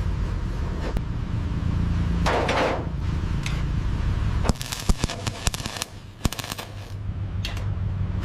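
A steady low mechanical rumble with a brief hiss, then, about halfway through, a quick irregular run of sharp metallic-sounding knocks and clicks.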